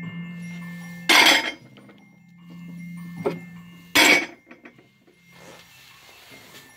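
Porcelain plates clinking as a plate is put back against a stack of others: two sharp ringing clinks about three seconds apart, a lighter clink between them and a few small taps after the second.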